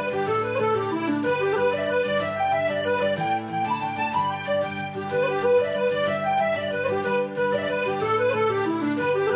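Background music played on solo accordion: a light, comical tune with running melody lines and falling runs over steady bass chords.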